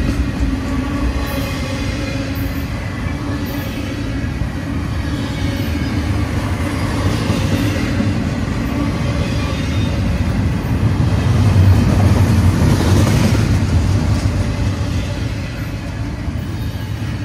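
Norfolk Southern double-stack intermodal well cars rolling past close by: a steady, loud rumble of freight car wheels on the rails, swelling somewhat about two-thirds of the way through.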